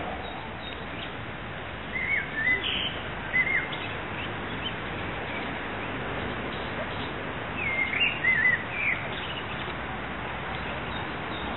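A bird chirping in two short bursts of rising and falling calls, about two seconds in and again about eight seconds in, over steady background noise.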